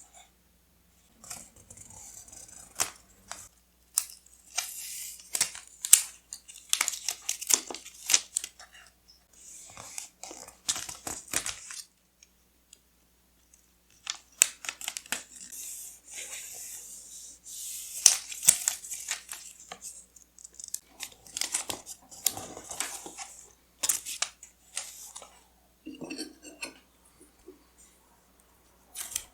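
Close-up paper and washi tape handling: tearing and rustling in short spells, with many light taps and clicks, and a pause of about two seconds midway.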